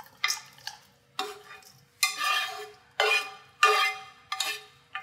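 A metal utensil scrapes sautéed vegetables out of a skillet into a stainless steel mixing bowl, in a series of scrapes roughly one a second.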